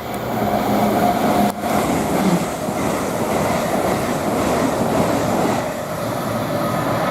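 Avanti West Coast Class 807 electric multiple unit passing, a loud steady rush of wheels on rail that swells in the first second and holds.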